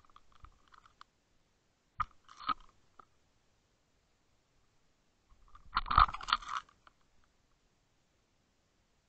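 Crunchy knocks and scrapes picked up through the housing of a Water Wolf 2.0 line-mounted underwater fishing camera as it is worked on the line above a bucktail jig: two short knocks about two seconds in, then a longer, louder burst of crunching about six seconds in.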